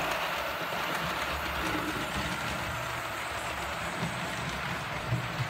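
OO gauge model trains running on the layout: a steady whirr of the small electric motors and wheels rolling on the track, with light clicks over the rail joints and a few louder ones near the end.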